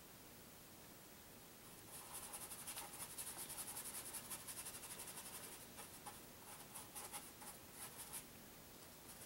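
Paintbrush scrubbing and dabbing paint onto the portrait in quick, faint, scratchy strokes. The strokes start about two seconds in, come densely for a few seconds, then turn sparser and stop near the end.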